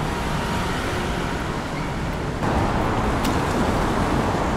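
Road traffic passing: a steady rush of car noise that grows a little louder about halfway through.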